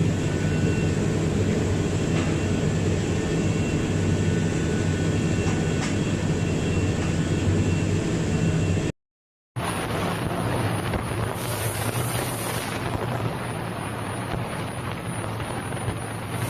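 Electric polishing machine running steadily with a motor hum and a grinding hiss; about nine seconds in the sound cuts out completely for a moment, then the machine is heard running again.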